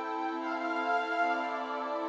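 Slow music played on Garritan sampled virtual instruments: several sustained notes held together, changing about half a second in, with no percussion.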